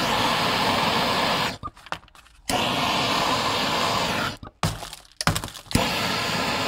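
Hot-air soldering rework station blowing in three steady stretches that switch on and off abruptly, heating the solder to lift a chip off the circuit board. A few sharp clicks and knocks come in the gaps, about two thirds of the way in.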